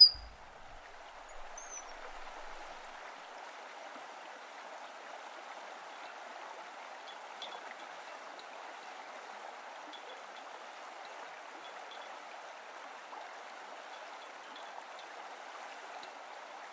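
Steady rushing of a stream, with a few faint high ticks over it. A single sharp knock right at the start.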